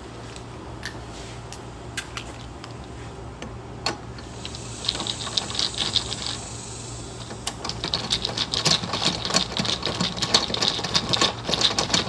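Ratchet wrench clicking rapidly as a spark plug is turned into a Toro lawn mower's engine, a few loose clicks at first, then fast runs of ratcheting from about five seconds in, pausing briefly and starting again.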